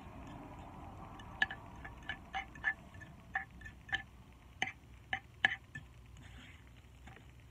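A utensil clinking against a bowl again and again as noodles are stirred to mix in the seasoning: about a dozen short, ringing clinks over roughly four seconds.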